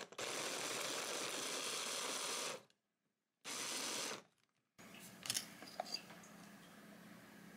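Lacuzin electric hand blender's chopper attachment running, mincing carrot, crab stick and green vegetables in its plastic bowl: one steady run of about two and a half seconds, a pause, then a short pulse of under a second. A few light handling clicks follow.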